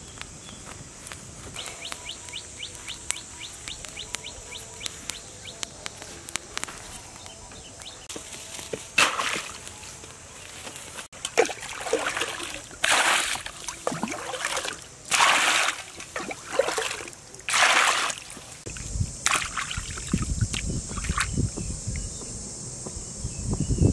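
Pond water scooped up with a frying pan and poured into a metal basin: about half a dozen splashing pours, each about a second apart. Near the end, hands slosh a grilled rat about in the basin of water to wash it. A steady high-pitched hum runs underneath throughout.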